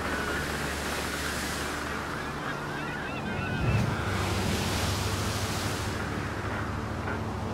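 Shore ambience of surf washing in slow swells, with birds calling faintly in the first few seconds over a low steady hum, and a low thump about halfway through.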